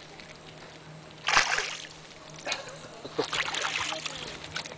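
Water splashing as a caught boga is released by hand into shallow river water: a short splash about a second in, then more splashing and sloshing from the middle to near the end.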